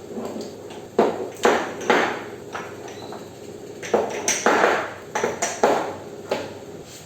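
Kitchenware being handled and set down: a run of clinks and clatters, about eight sharp knocks with a short metallic ring, in two bunches.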